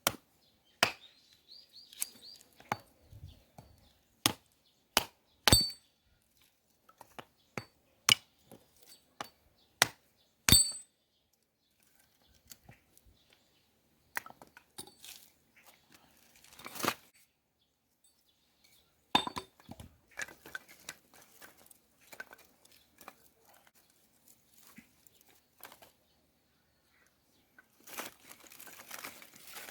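Dry firewood being chopped and handled: an irregular string of sharp wooden knocks and clacks, several with a short ringing tone, about one a second at first and sparser later. A brief rustling comes near the end.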